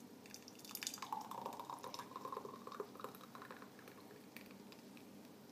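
Hot apricot jam being poured from a Thermochef jug into a glass jar: faint pouring and dripping with small clicks, busiest over the first three seconds and then thinning out.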